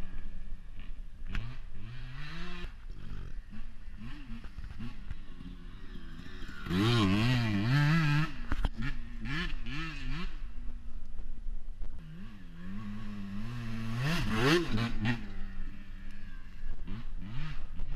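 Dirt bike engine revving on a trail ride, its pitch climbing and dropping again and again, loudest about seven seconds in and again about fourteen seconds in.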